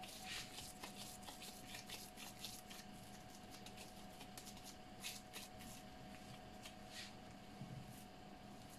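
Faint crinkling and rustling of disposable plastic gloves as hands pat and shape a ball of mashed potato, with a faint steady hum underneath.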